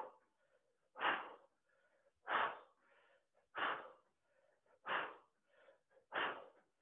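A woman's sharp, forceful exhales, one about every 1.3 seconds, each timed to a twist of a fast workout exercise.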